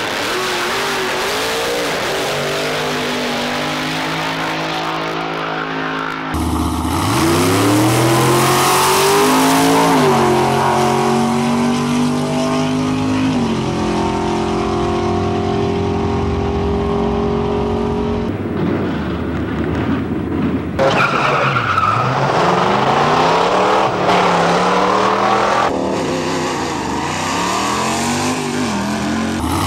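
1960s drag racing cars' engines at full throttle down the strip, climbing in pitch through each gear and dropping at the shifts. Several runs follow one another, with the sound changing abruptly at each cut.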